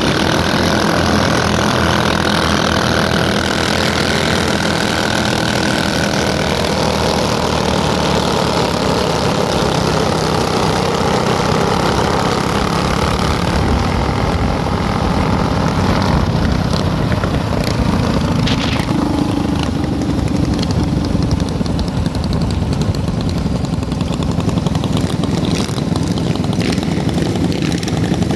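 Engines of a group of small motorcycles and mini bikes running as they pull away and ride in a pack, the engine pitch shifting as the bikes change speed.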